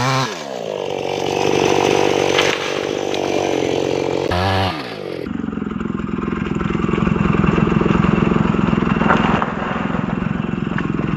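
Maestro Plus CS6500L two-stroke chainsaw dropping from full revs to idle as the cut through the teak trunk is finished. It blips up briefly about four seconds in, then idles with a rapid, even pulsing.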